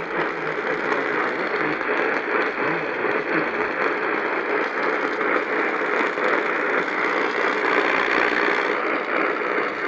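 Steady AM radio static: a continuous hiss with light crackle on the received channel, with no programme audio.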